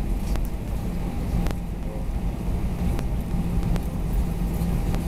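Cabin noise of an Airbus A320-214 taxiing: a steady low rumble from the idling CFM56 engines and rolling wheels, with a faint hum and a few light clicks.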